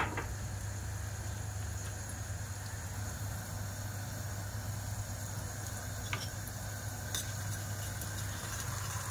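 Pot of dried white beans simmering in water, with faint bubbling over a steady low hum. A sharp click comes right at the start, and there are a couple of faint ticks later.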